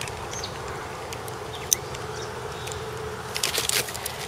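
Steady buzzing of an insect, with a few short bird chirps. A single sharp click comes just under two seconds in, and a burst of clicking and rustling near the end.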